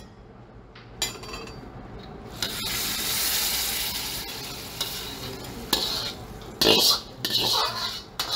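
A metal ladle stirring and scraping sauce in a wok, with a hiss of sizzling for a few seconds from about two and a half seconds in and sharp clinks of the ladle against the metal.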